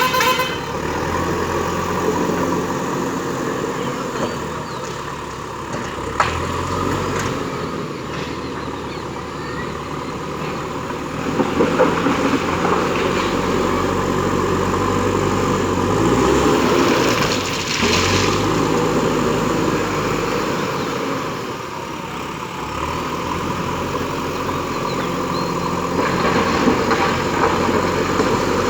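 JCB 3DX backhoe loader's diesel engine running under load, its pitch rising and falling as the operator works the throttle and hydraulics, with a short horn-like tone right at the start.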